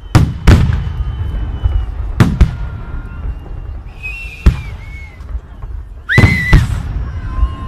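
Fireworks salute: aerial shells bursting with sharp bangs, several in quick pairs, with a low rumble between them. A hiss comes just before a bang around the middle. Near the end a rising whistle runs under a dense cluster of bangs.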